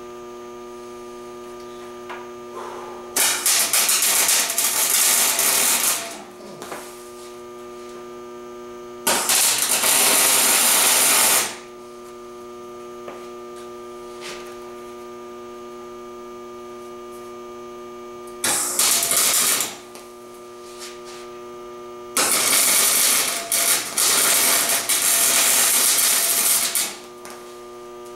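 Electric welder humming steadily between four bursts of crackling arc as the exhaust pipe joints for the new catalytic converters are welded; the longest burst, about five seconds, comes near the end.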